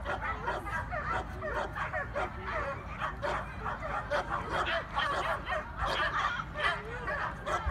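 A dog yipping and barking over and over, short high calls coming several a second without pause.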